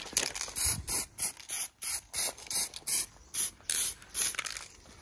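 Aerosol spray-paint can sprayed in short, quick bursts of hiss, about three a second, touching up fresh welds on steel.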